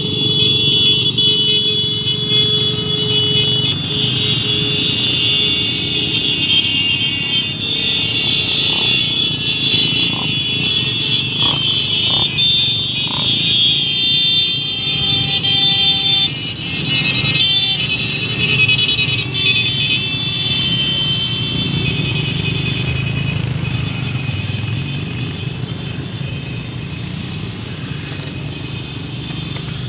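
A column of trail motorcycles riding past on a gravel road, many engines running together. Loud, high, steady tones ring out over the engines through the first half and fade after it.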